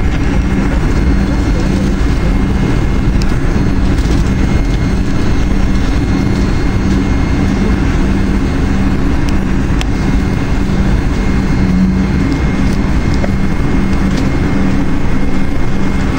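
Steady engine and cabin noise inside a McDonnell Douglas MD-80 taxiing onto the runway, its rear-mounted Pratt & Whitney JT8D turbofans at taxi power, with a deep rumble under a faint steady whine.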